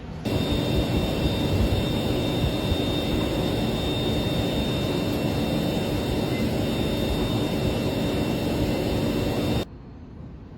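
Loud, steady machinery and air-handling noise in a chip factory workshop: a rushing hum with a few high, steady whines. It starts suddenly and cuts off suddenly near the end.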